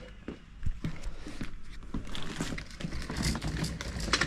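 Two-wheeled hand truck carrying a boxed 30 kg anvil being moved, with irregular knocks, bumps and clatter from the wheels and load.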